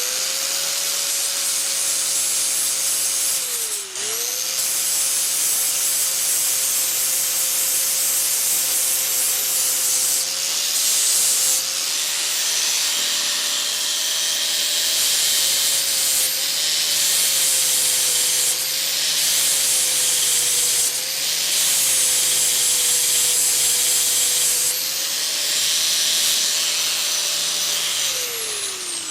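DeWALT DWE4011 angle grinder with a flap disc grinding down flux-core welds on steel flange nuts. The motor runs steadily and the grinding hiss rises and falls as the disc bites. The motor dips briefly about four seconds in and winds down near the end.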